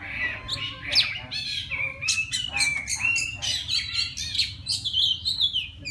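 Oriental magpie-robin singing a rapid, varied song of short chirps, sliding whistles and scratchy notes with no pause. It is a male's song to call a female.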